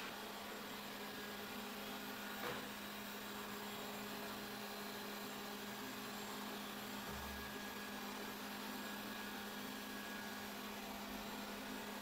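Xiaomi Vacuum Mop Pro 2 Plus robot vacuum running on standard suction while sweeping and mopping: a steady hum with an even whir, and one faint tick about two and a half seconds in.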